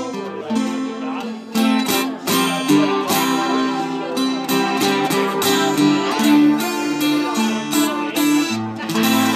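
Guitar strummed and picked through a small Fender amplifier, chords ringing with repeated sharp strokes and held notes.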